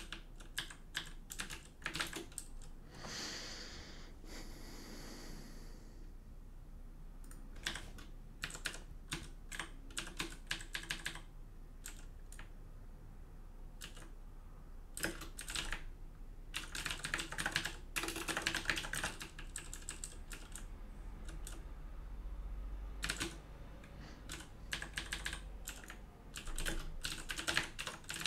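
Computer keyboard typing in quick bursts of keystrokes, with short pauses between bursts.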